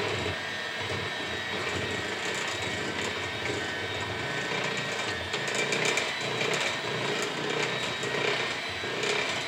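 Electric mixer running steadily while mixing cake batter, a continuous motor whine with a slight rise and fall in level.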